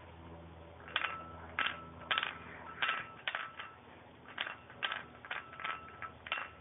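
A plate clinking about a dozen times in an uneven series of light knocks, each with a short ring, as a dog works at a biscuit lying on it.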